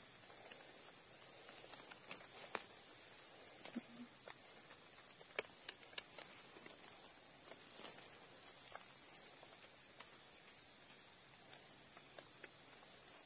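Insects chirring in a steady, unbroken high-pitched drone, with a few faint clicks and rustles of leaf litter as mushrooms are dug out by hand and knife.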